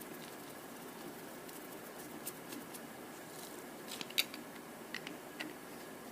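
Scattered light clicks and taps of small metal carburetor parts and a hand tool being handled, with a clearer cluster of clicks about four seconds in.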